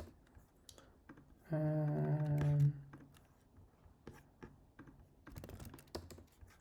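Computer keyboard typing and clicking in scattered keystrokes, with a person's short steady hum, about a second long, starting about a second and a half in.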